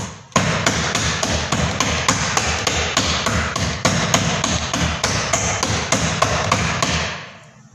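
A hand beating soft gemat dough batter in a bowl: quick, wet, regular slaps, about four a second, starting just after the start and stopping near the end.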